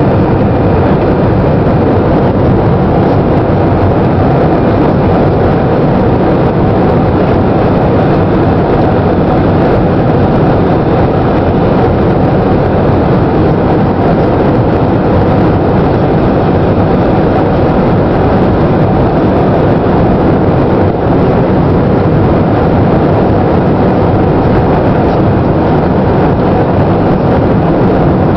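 Steady, loud cabin noise aboard a Boeing 747-400 on final approach with flaps extended: a dense rumble of engines and rushing air that holds even throughout.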